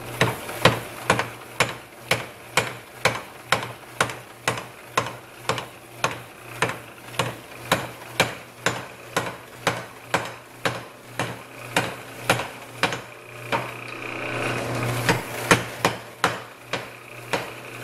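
Power hammer striking a red-hot bar of truck leaf-spring steel, a steady run of blows at about two a second, with a steady hum underneath. The blows briefly break up about two thirds of the way through, then resume.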